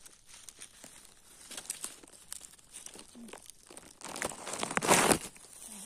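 Dry fallen leaves rustling and crackling with scattered small crackles, then a louder, longer rustle about four seconds in.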